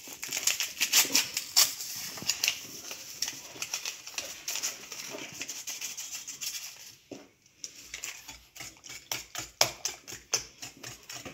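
Vanilla sugar shaken from a paper sachet into beaten eggs in a glass dish, giving a dense rattle and rustle. After a short pause, about eight seconds in, a wire whisk starts beating the eggs against the glass in quick, even strokes.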